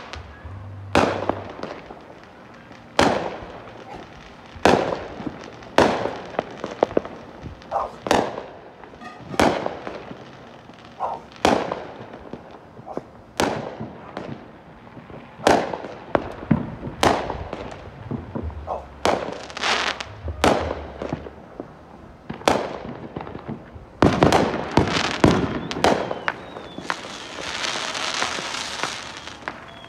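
Consumer aerial fireworks going off: sharp bangs of shells bursting, about one every second or two. Near the end the bangs come thicker, over a continuous crackling hiss.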